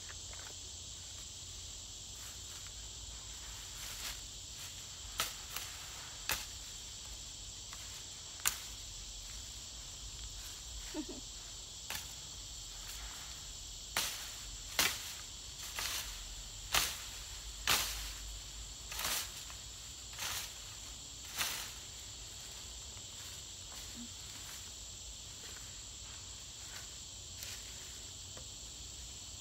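Long-handled cane cutter swung through tall grass and weeds: about a dozen short swishing cuts, a few scattered at first, then a quick run of them in the middle. A steady high insect drone runs underneath.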